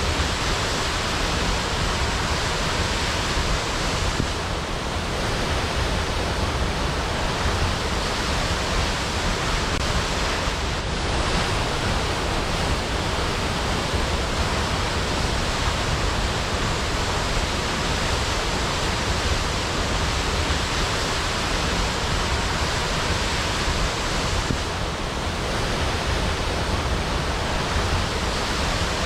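Waterfall: water falling and splashing in a steady, loud rush.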